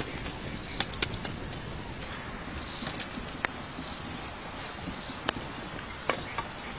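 Wood fire crackling, with irregular sharp pops from the burning embers.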